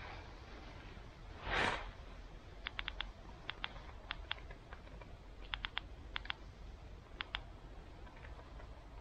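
A short burst of rustling noise about one and a half seconds in, then small irregular groups of sharp, light clicks, two or three at a time.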